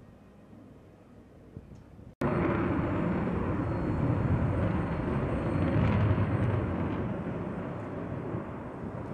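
Faint low rumble, cut off abruptly about two seconds in by loud jet noise from an F-22 Raptor's two Pratt & Whitney F119 turbofan engines in flight. The jet noise swells around six seconds in and eases toward the end.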